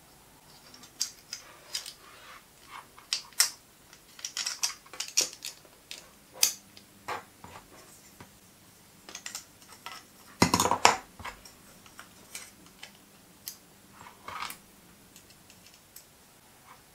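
A small wired switch and its black bracket handled by hand: an irregular string of light clicks and small knocks, with a louder cluster of knocks a little past halfway.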